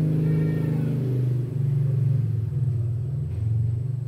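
Low rumble of a running engine, its hum shifting lower and higher a few times.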